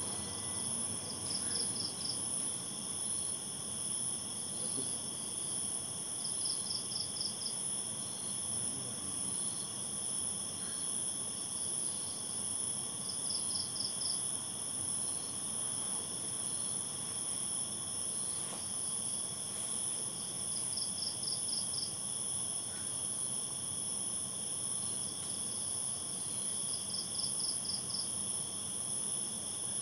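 Night-time insect chorus: a steady, high-pitched continuous trill, with a short burst of five or six quick chirps repeating about every six to seven seconds.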